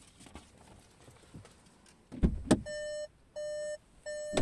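Two heavy thumps about two seconds in, then a Seat Leon's warning chime starts beeping: a steady mid-pitched tone repeating a little faster than once a second. Another thump comes near the end.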